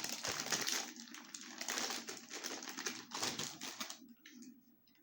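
Pork rinds being crunched and chewed close to the microphone: a dense, fast crackle that stops about four seconds in, followed by a few faint clicks.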